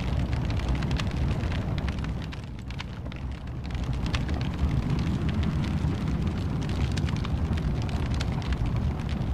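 Wood fire burning in a fireplace: a steady low rumble of flames with frequent sharp crackles and pops, easing briefly about three seconds in.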